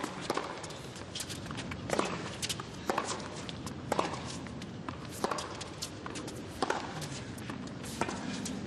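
Tennis rally: racquets striking the ball and the ball bouncing on the court, a sharp pop roughly every second, over a hushed crowd.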